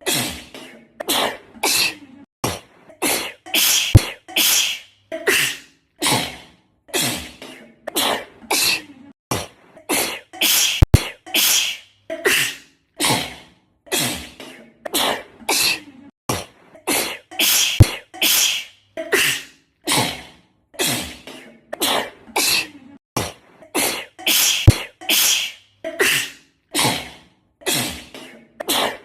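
A girl sneezing over and over in a sneezing fit, short sharp sneezes about one to two a second with brief gaps between. A sharp click cuts in about every seven seconds.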